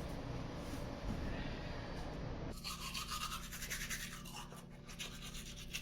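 A steady rushing noise that cuts off abruptly about two and a half seconds in, followed by fast, rhythmic scratching.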